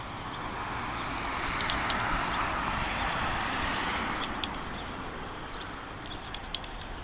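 A vehicle passing: a steady rushing noise that swells and then fades over about four seconds, with scattered small sharp clicks.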